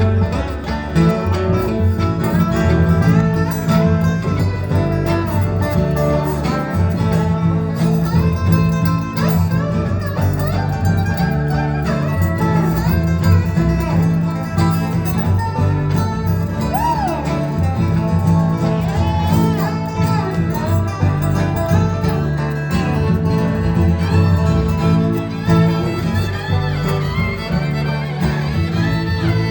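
Bluegrass string band playing an instrumental break, with a fiddle taking the lead over strummed guitar and a steady bass.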